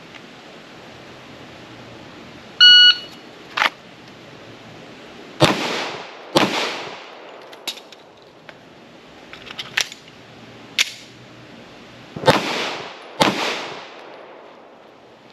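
A shot timer beeps, then a 9mm Glock 19 pistol fires two shots about a second apart. Sharp clicks of a magazine reload follow, and near the end two more shots about a second apart: a two-shots, reload, two-shots qualification drill.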